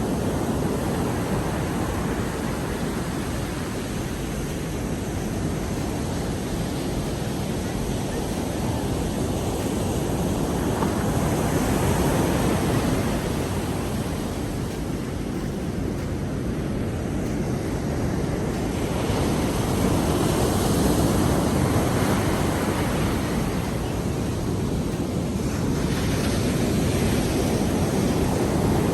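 Rough sea surf: heavy waves breaking and washing in as a continuous rush, swelling louder three times as bigger waves come in.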